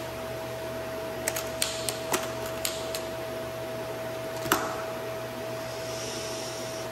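Latches of an aluminium-framed carrying case being flipped open and the lid lifted: a quick run of sharp metal clicks, then one louder click about four and a half seconds in. A steady hum with a constant tone runs underneath.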